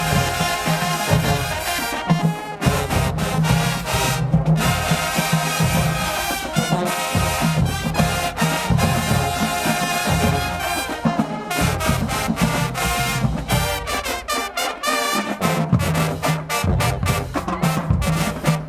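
High school marching band playing: brass sections with heavy bass drum and percussion hits, the music breaking off in short stops between punched phrases.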